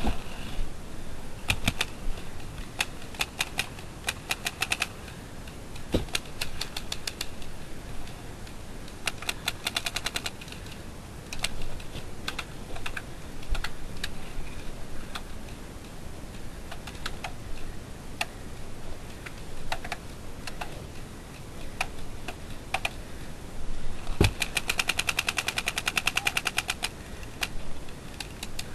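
Paintball markers firing: rapid strings of shots at about ten a second, several bursts of one to two seconds with single shots between, the longest and loudest burst near the end. A couple of low thumps stand out, about six seconds in and again shortly before the final burst.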